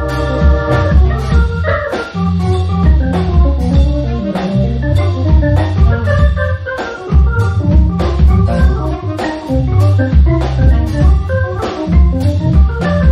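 Jazz organ trio playing: a Hammond-style organ holds chords and plays a moving line over a walking low bass line, with drums keeping time.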